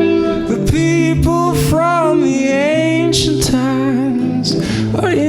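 A solo voice singing long, wavering notes over steady sustained chords, in a stripped-down song arrangement.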